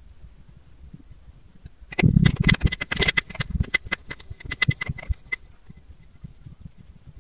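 Kinetic sand packed in a clear tube crunching and crackling as a clear rod is pressed down into it. A dense run of crackles with dull thuds starts about two seconds in and thins out over the next three seconds.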